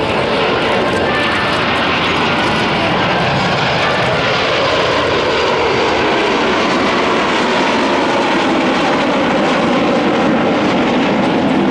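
Four Kawasaki T-4 twin-turbofan jet trainers flying past together in formation, a loud, steady jet engine noise. The engine pitch slides down slightly past the middle as they pass.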